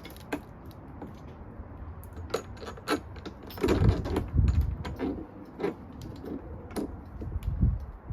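Handling noise: a string of sharp clicks, knocks and rattles, with a few heavier thumps in the middle and near the end.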